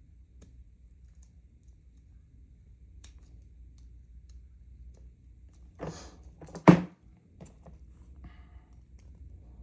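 Small metal lock parts being handled while a dimple lock is taken apart: scattered faint clicks, a short scrape about six seconds in, then a single sharp click just after it.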